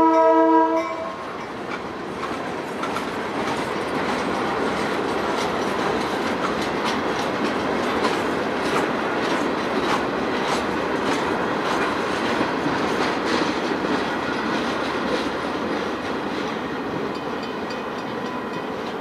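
Locomotive horn chord sounding and cutting off about a second in, followed by a train rolling past, its wheels clicking over the rail joints; the rolling sound eases slightly near the end.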